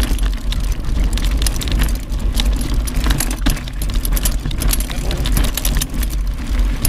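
Mountain bike riding fast over a rocky, gravelly trail: a steady stream of clattering and rattling from the bike and stones under the tyres, over a heavy wind rumble on the bike-mounted microphone.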